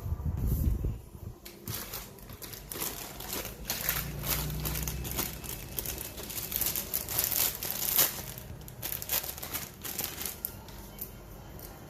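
Plastic packaging bag crinkling and rustling in irregular bursts as it is handled, the bag that holds the model kit's plastic runners.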